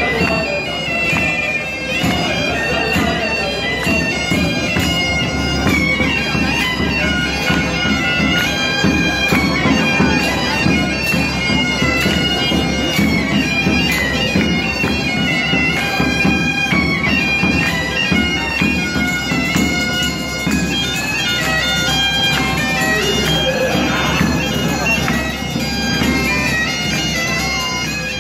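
Bagpipes playing a medieval tune over a steady drone, with a drum beating along.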